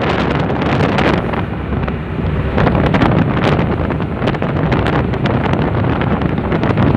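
Wind buffeting the microphone over the steady noise of a ferry under way: its engine and the rush of churning white water along the hull.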